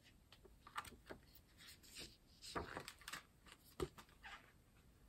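Faint rustles and soft clicks of the paper pages of a mediabook booklet being handled, scattered through an otherwise quiet room.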